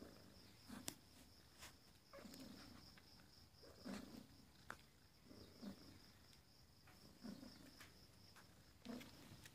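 Faint purring of a domestic cat nursing her kittens, swelling and easing in slow, regular breaths about every second and a half. A faint, high, rapidly pulsing chirp runs steadily behind it.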